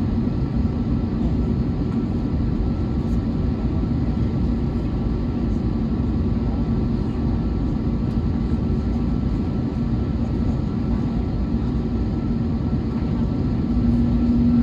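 Airbus A321neo cabin noise from the running engines and airflow, heard from inside the cabin: a steady low rumble with a held hum that grows louder near the end.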